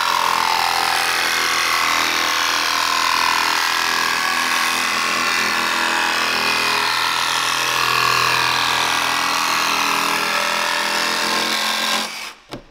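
Jigsaw cutting through the sheet-metal roof of a Mercedes Sprinter van, running steadily and stopping near the end. This is the fourth and final cut that frees the square panel for a roof fan opening.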